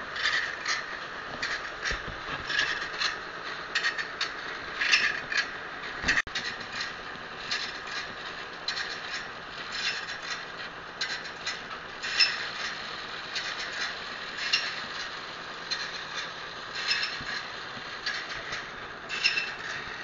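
Band saw blade sharpening machine grinding the blade's teeth one at a time: a steady grinding sound with a sharp scraping stroke at each tooth, about two a second.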